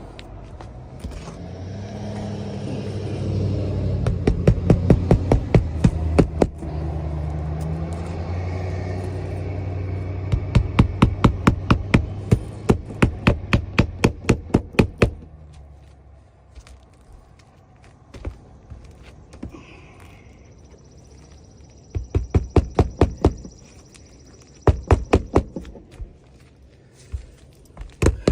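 Hammer driving nails into roofing shingles by hand, in quick runs of light blows, about four or five a second, with pauses between runs. A low engine rumble runs under the first half and fades out about halfway through.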